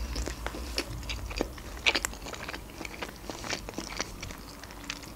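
Close-up chewing of a mouthful of sushi roll with the mouth closed: a steady scatter of soft wet mouth clicks and light crunches.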